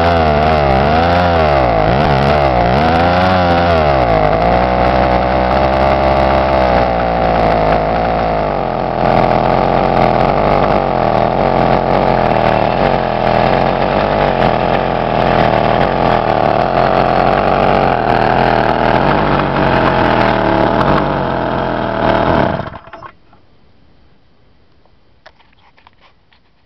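Small 110cc single-cylinder air-cooled stationary engine running, revved up and down several times on its throttle lever at first, then held at a high steady speed. It cuts off abruptly near the end.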